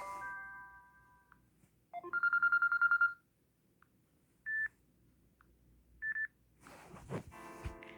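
Samsung Galaxy Note 9 ringtones playing one after another through the phone's speaker. A stepped electronic chime fades out, then a rapid trilling tone sounds for about a second, followed by two short single beeps. Near the end a knock is heard and a new multi-note ringtone begins.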